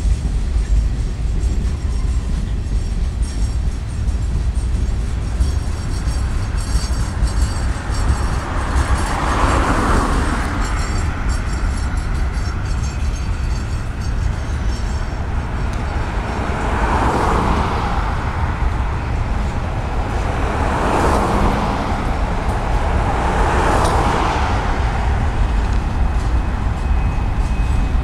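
Freight train of boxcars and covered hoppers rolling past: a steady low rumble of wheels on rail, swelling louder four times, with a faint high ringing in the first half.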